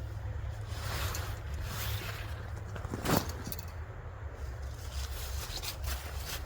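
Rustling and scraping as a ground sheet and pack are handled, with a short, sharp scrape about three seconds in and a few light ticks near the end.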